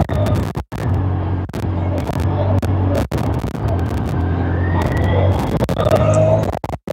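Yamaha YXZ1000R side-by-side driving, its three-cylinder engine running at steady revs. The sound cuts out briefly twice.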